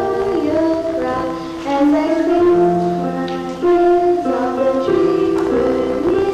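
Music from a stage musical number: a melody moving from note to note in held steps over accompaniment.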